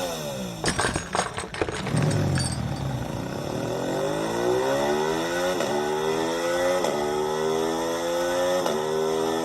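Kawasaki Z900 inline-four engine accelerating hard through the gears. A few sharp crackles come in the first two seconds; then the engine note climbs, dipping briefly at three upshifts and climbing again after each.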